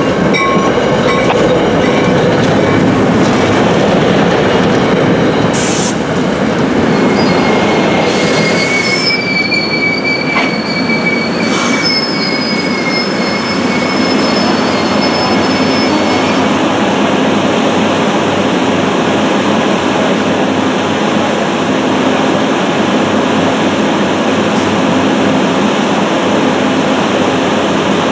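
NJ Transit commuter train of Comet coaches rolling slowly past and braking to a stop, its wheels clacking over the rail joints. A high wheel squeal runs from about eight to sixteen seconds in. A steady rumble continues as the train comes to a stand.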